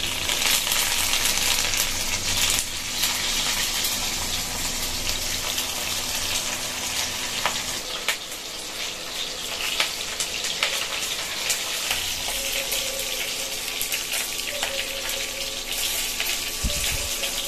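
Fish laid on a banana leaf frying in a hot pan, with a steady sizzle and scattered crackling pops.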